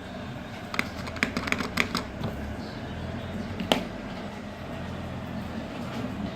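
A quick run of light plastic clicks and taps, then one sharper click a couple of seconds later, over a steady low background hum.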